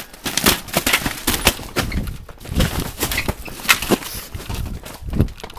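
Plastic-wrapped pillows and bedding packages being swept off store shelves: a quick, irregular run of rustling plastic and soft thumps as they fall and hit the floor.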